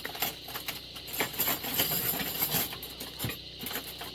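Irregular rustling and light clicking of a tent being pitched, its fabric and poles handled.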